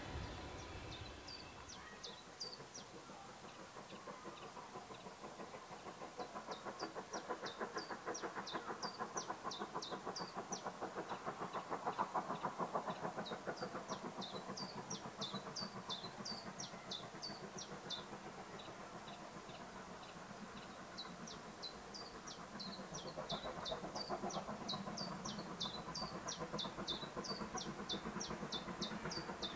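Distant steam locomotive working away, its exhaust beats coming in a quick, even rhythm that swells about ten seconds in and again near the end. Small birds chirp repeatedly over it.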